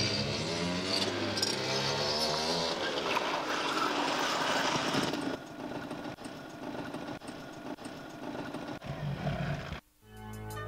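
Small motorbike engines, a scooter and a dirt bike, revving with the pitch rising and falling, then running more quietly for a few seconds. The sound cuts off near the end and music starts.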